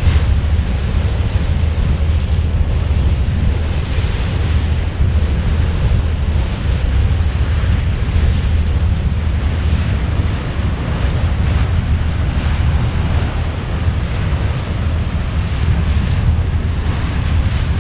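Wind buffeting the GoPro's microphone on the bow of a boat under way, a steady low rumble over the even hiss of water rushing past the hull.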